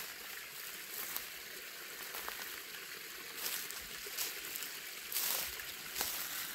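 Steady rushing of a small mountain stream, with a few brief crunches and clicks scattered through it, the loudest about five seconds in.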